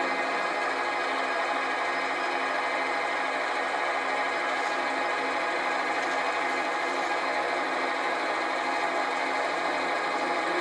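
Metal lathe running steadily, its motor and gearing giving a constant whine, while a parting tool cuts down a phosphor bronze workpiece.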